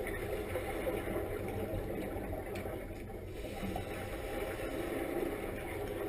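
Steady underwater rumble and bubbling from the divers' helmet exhaust bubbles, heard through an underwater camera.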